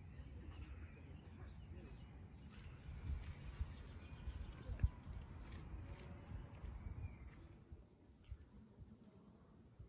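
A cricket chirping in short trains of rapid, high-pitched pulses from about two and a half seconds in until near the end, over a low rumble.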